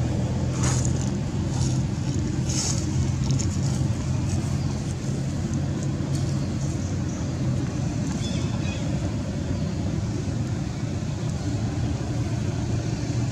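A steady low engine drone, with a couple of short high-pitched sounds in the first three seconds.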